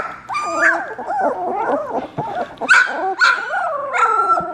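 Several young chocolate Labrador puppies whining and yelping together, overlapping high-pitched cries that rise and fall.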